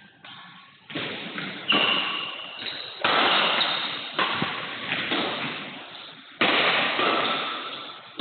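Badminton rally: a series of sharp racket strikes on the shuttlecock, roughly one every second or so, each followed by a long echo in the hall.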